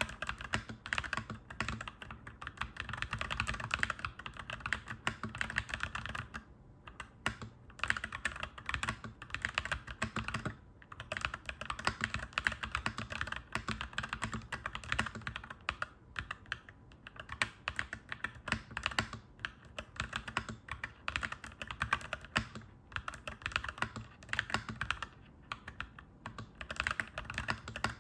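Fast, continuous typing on a clacky mechanical keyboard, a dense run of key clicks broken by a few short pauses.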